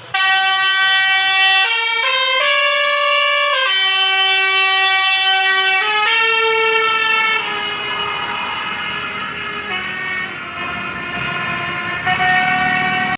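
A bus's telolet multi-tone musical air horn (Basuri type) playing a tune, loud pitched notes stepping up and down and held from half a second to two seconds each. It starts abruptly and grows softer and less clear after about seven seconds.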